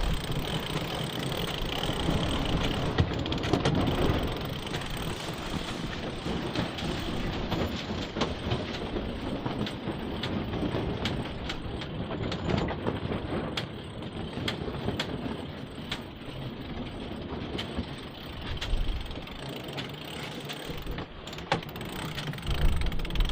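Sailboat winch ratchets and blocks clicking in quick runs as sheets are hauled in during a gybe, over a steady rush of wind and water.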